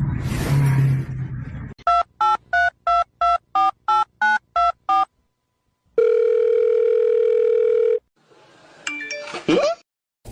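Telephone keypad dialing: about eleven quick two-tone beeps in a row, then after a pause one steady ringing tone lasting about two seconds. Before the dialing there is a rushing noise, and near the end a short falling squeal.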